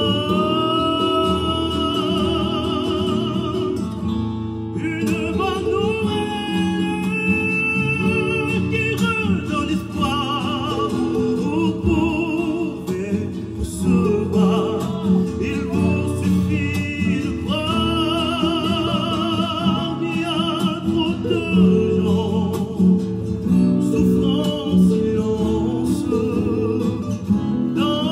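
A hymn sung solo with strong vibrato over guitar accompaniment.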